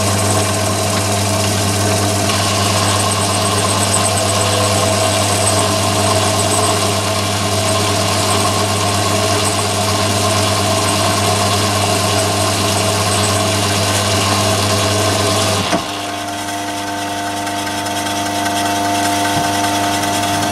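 Myford ML7 lathe running a 50mm boring head through a 20 thou boring cut in steel, a steady mechanical running noise with a strong low hum. About three-quarters of the way through the cutting noise stops abruptly, leaving a quieter, steadier hum.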